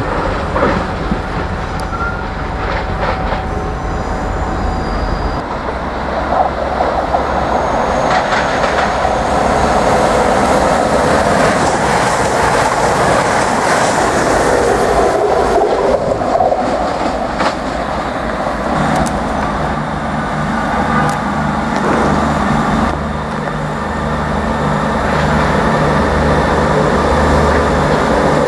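A CrossCountry Voyager diesel multiple unit runs through the station over the points, building to a loud rush of wheel and engine noise about halfway through. In the last third a Class 158 diesel multiple unit runs in with a steady low engine thrum and a few wheel clicks.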